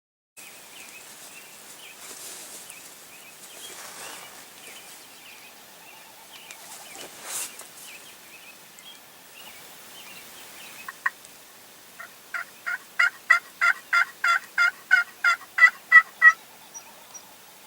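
Faint birdsong, then a run of about a dozen evenly spaced turkey yelps, about three a second, growing louder toward the end.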